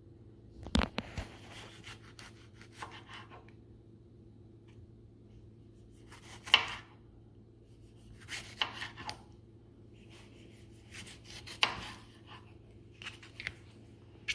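Kitchen knife slicing through a tomato, the blade clicking down onto a thin plastic cutting board with each cut, in separate strokes at uneven intervals.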